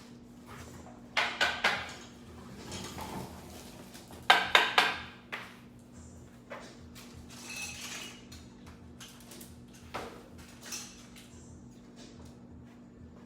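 Trading cards and card packs being handled on a table: two quick clusters of three or four sharp clicks, about a second in and about four seconds in, with lighter taps and rustles between, over a faint steady hum.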